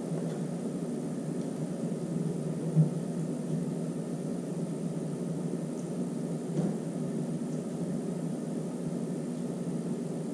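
Steady low whirring hum, with a short knock about three seconds in and a softer one near seven seconds.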